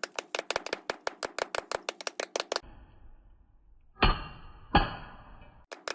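A fast, even clicking rhythm, about seven clicks a second, stops about two and a half seconds in. Two heavy booming hits follow less than a second apart, each ringing out. The clicking starts again near the end.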